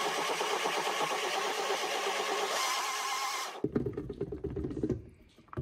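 Blendtec countertop blender running at speed, puréeing soaked dried chilies, broth and tomatoes into a sauce: a loud, steady motor-and-blade noise that cuts off abruptly about three and a half seconds in. Lower knocks and rattles follow as the lid is lifted off the jar.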